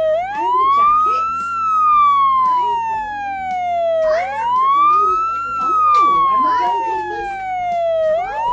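Electronic siren wailing: a tone that sweeps quickly up, then slides slowly down, repeating about every four seconds.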